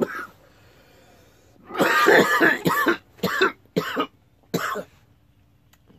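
A man coughing after a bong hit of cannabis smoke: one short cough at the start, then a coughing fit about two seconds in, a long run of coughs followed by four separate coughs, dying away about five seconds in.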